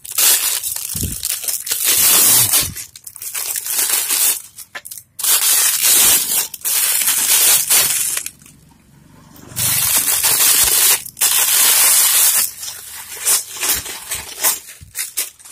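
Plastic cling wrap and bubble wrap being torn and crumpled off by hand, in several loud bouts with a quieter pause a little past the middle.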